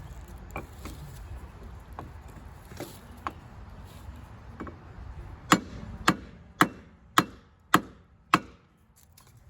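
Six sharp hammer blows, evenly spaced about two a second, during golf cart rear hub work, after a few seconds of lighter scattered clicks and knocks.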